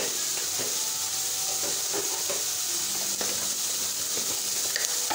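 Chicken pieces and sliced mushrooms frying in a kadai, a steady sizzle.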